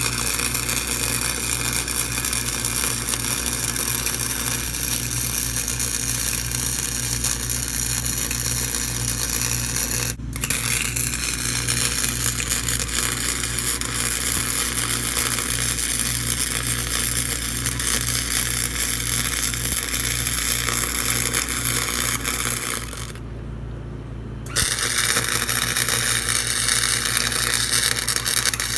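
Welding arc crackling steadily as a scrap-steel patch is welded onto a worn-through stamped-steel lawnmower deck, over a steady low hum. The arc breaks for an instant about ten seconds in, then stops for about a second and a half near the end before striking up again.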